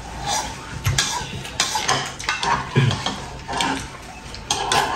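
Metal spoon clinking and scraping against a ceramic soup bowl, several separate sharp clinks.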